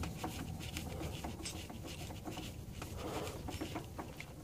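A loosened spin-on oil filter being turned off its threads by hand: light scattered ticks and rubbing as the fingers work the metal canister.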